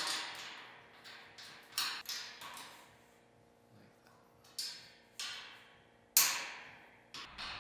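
Sharp metallic clicks and taps of bolts, nuts and an Allen key knocking against a metal bed frame as the bolts are fitted and tightened: a handful of separate clinks about a second apart, the loudest about six seconds in.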